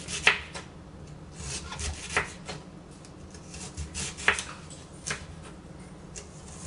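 Ceramic utility knife slicing through an onion, its blade tapping down on a cutting board in several irregular, sharp strikes between softer rubbing of the blade through the onion.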